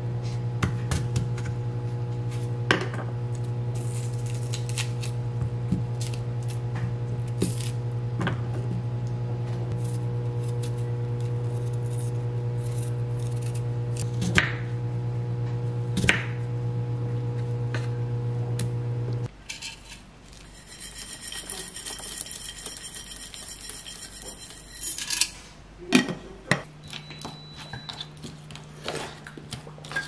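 A knife cutting and peeling a sweet persimmon on a wooden cutting board: scattered taps and knocks of the blade and fruit on the board, over a steady low hum that cuts off about two-thirds of the way in. Near the end, a wooden spoon knocking and scraping in a wooden bowl of yogurt.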